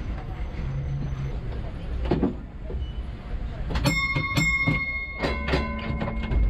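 Clunks and knocks from a stationary heritage tram being changed over to drive from the other end. About four seconds in, a cluster of sharp clicks comes with a steady high ringing tone, and a low steady hum joins a second later.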